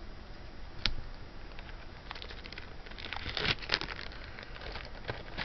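Costume jewelry being handled: a sharp click about a second in, then a run of small irregular clicks and rustling, as beads and chain are picked up and shifted about with some plastic bag crinkling.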